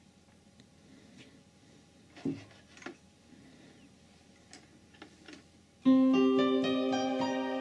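A few faint clicks, then about six seconds in a keyboard sound from a software instrument plays a quick upward run of notes that ring on together as a sustained chord.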